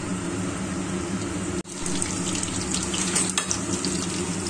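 Chicken pakoras deep-frying in hot oil in a kadai, a steady sizzle with crackling. After a brief break about a second and a half in, marinated chicken pieces fry in oil with the same sizzle, over a steady low hum.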